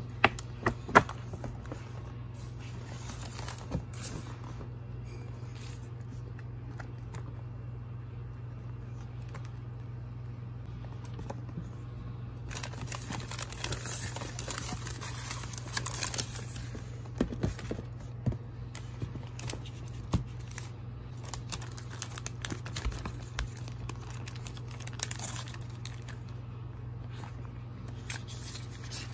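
Packaging handled by hand: a paper gift bag and clear plastic wrapping rustling and crinkling, with a few sharp knocks near the start and the crinkling busiest in the middle. A steady low hum runs underneath.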